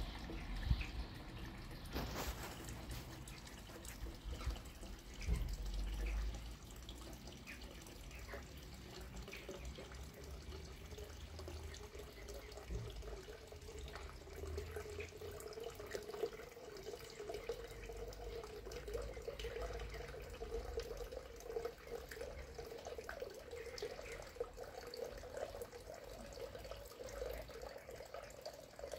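Pond water running steadily from a return pipe and splashing into a koi pond.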